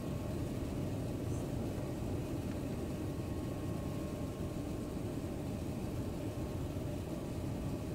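Airliner cabin noise heard from inside on the descent to landing: a steady rumble of engines and airflow, with a faint steady whine above it.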